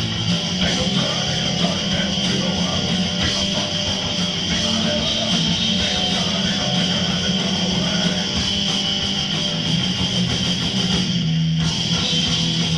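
Punk rock band playing live, with loud distorted electric guitar over bass; the guitar and high end drop out for a moment near the end.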